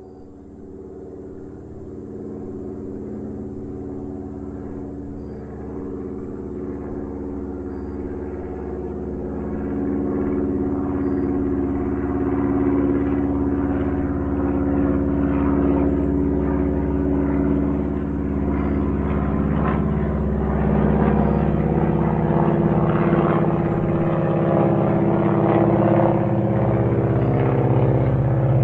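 Small propeller airplane's engine running at a steady pitch, growing steadily louder throughout.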